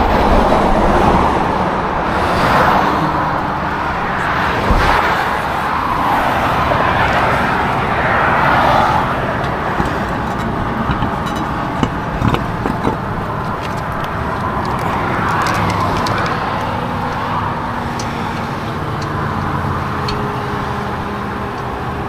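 Road traffic passing, the noise swelling and fading several times, with a few short knocks about halfway through.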